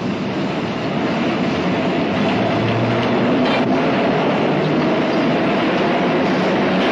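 Subway train running beside a platform: a loud, steady rumble and clatter of wheels on rails.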